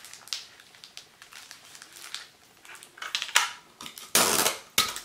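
Clear cellophane wrapping rustling softly as it is folded around a card, then a strip of clear sticky tape pulled off a desk dispenser with a loud rasp about four seconds in, torn off with a sharp click.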